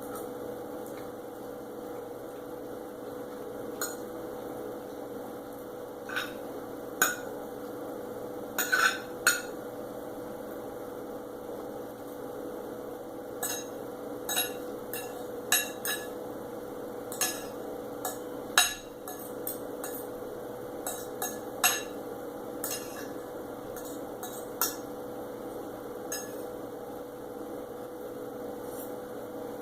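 Cutlery clinking and tapping on a plate in irregular sharp clicks while eating roast chicken, over a steady electrical hum.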